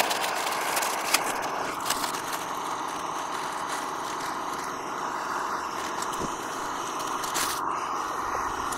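FireMaple X3 canister gas stove's burner running steadily under a pot of about 250 ml of water, heating it to the boil: an even hiss with a few faint ticks.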